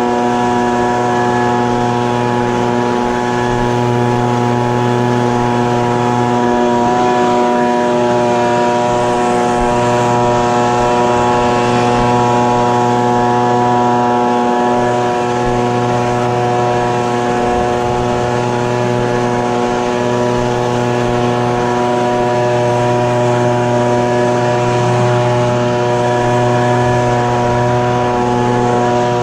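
Echo PB-2520 handheld leaf blower's two-stroke engine running at a steady speed, with the rush of air from the blower tube.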